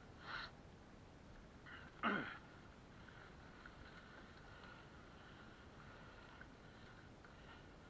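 Faint, muffled trail noise of a mountain bike rolling along a dirt singletrack, with two short sounds: a brief one at the start and a louder one about two seconds in that drops quickly in pitch.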